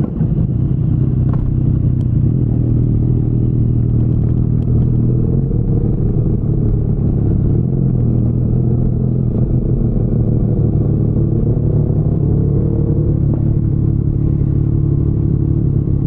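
2019 Yamaha MT-09's three-cylinder engine running through an Akrapovic full-system exhaust, a steady low note. Its higher tones bend up and down a little around the middle.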